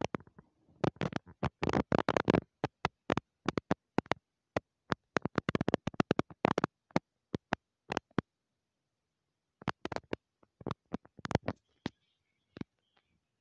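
Irregular sharp clicks and crackles, densest in the first couple of seconds, then scattered, pausing for over a second, and returning in a short cluster before fading out.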